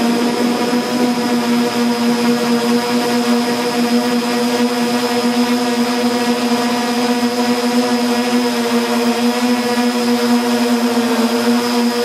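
Multirotor camera drone's motors and propellers humming steadily at a constant pitch, heard close up from the drone itself, the pitch wavering slightly near the end.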